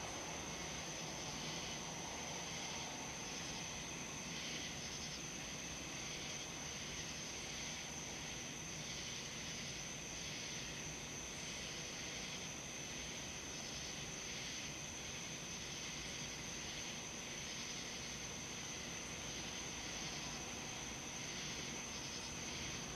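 Night insects chirping steadily outdoors: a constant high-pitched trill with softer chirps pulsing about once a second beneath it, over a faint hiss.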